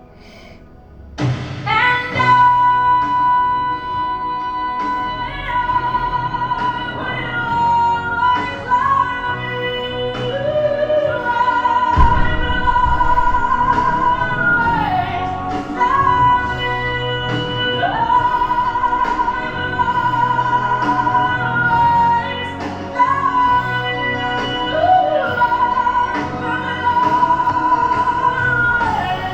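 Music with operatic-style singing: a high voice holding long notes with vibrato and gliding between them over steady accompaniment, starting about a second in.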